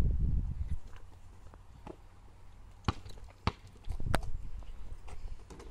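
Basketball bouncing on an asphalt court: three sharp bounces a little over half a second apart, starting about three seconds in, with a fainter one a second before.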